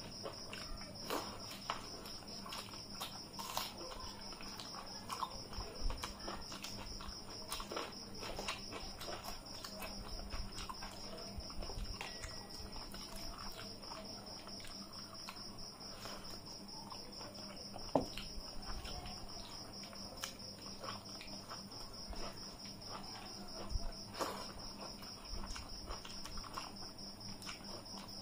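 Eating by hand from metal plates: fingers mixing rice and curry, chewing, and small clicks and taps on the plates, with one sharper clink about two-thirds of the way through. A steady high-pitched whine runs underneath.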